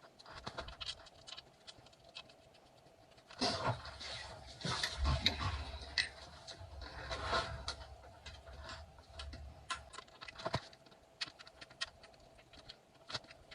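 Small clicks and taps of bolts and hand tools being worked into a mountain bike's suspension, with a louder stretch of rustling and handling noise from about three and a half to eight seconds in.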